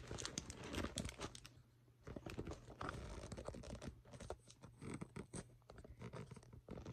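Faint scratchy rubbing and small clicks of a phone being handled and repositioned in the hand, close to its microphone.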